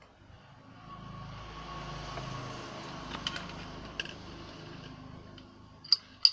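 A motor vehicle passes, its engine hum and road noise swelling and fading over a few seconds. Small sharp clicks from the circuit board and tools being handled come through, the loudest two near the end.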